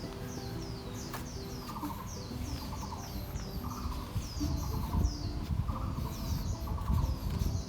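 Birds chirping: a steady run of short, high, downward-sweeping chirps, two or three a second, with a lower pulsed call about once a second, over a low rumble that grows louder in the second half.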